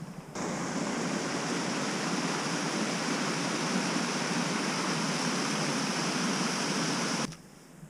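River water rushing over rocks and small falls: a steady rush that starts just after the beginning and cuts off abruptly about seven seconds in.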